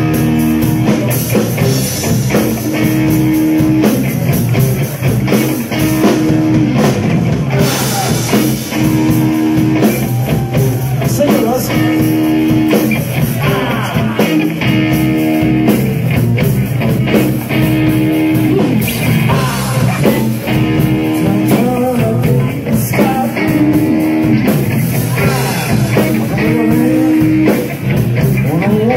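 Live blues-psychedelic rock trio playing loud on electric guitars and drum kit, with a riff repeating about every three seconds.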